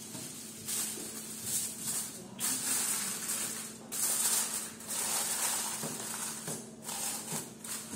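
Aluminium foil crinkling in irregular stretches as a sheet is torn from the roll, then pressed and folded down around the rim of a glass baking dish.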